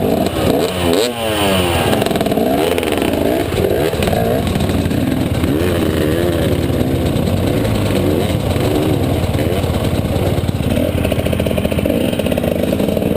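Trail motorcycle engine revving up and down repeatedly under changing throttle, with a brief dip about a second in.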